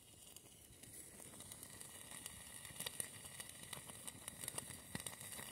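Faint crackling of a wood fire burning in a small camp stove, irregular ticks and pops that come more often and a little louder after about two seconds.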